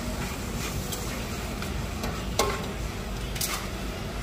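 Food-stall kitchen clatter over a steady low background rumble, with two sharp clinks of metal kitchenware, one about halfway through and another a second later.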